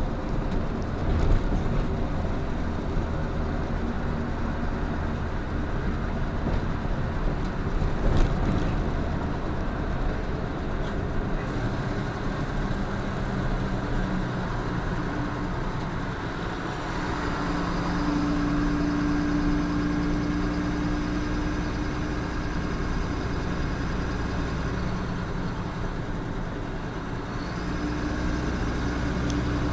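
Truck engine droning and tyres rumbling, heard from inside the cab while cruising on a motorway. The engine note shifts and grows stronger about halfway through, with a couple of small knocks from the cab early on.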